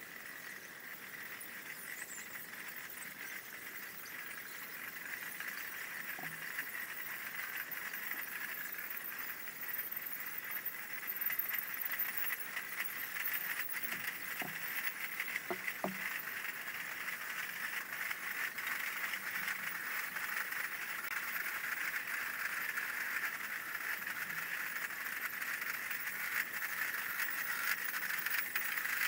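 Massed piccolos and drums of Basel Fasnacht cliques playing in the distance, the shrill fife tone and drum rattle growing steadily louder as they approach.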